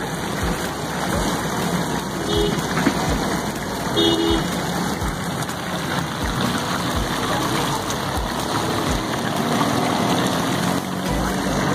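Busy street noise: motor traffic running nearby under a steady hiss, with two short tones about two and four seconds in.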